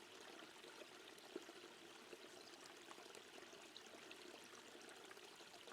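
Near silence with a faint, steady sound of running water, a soft background stream under the pause in the guidance.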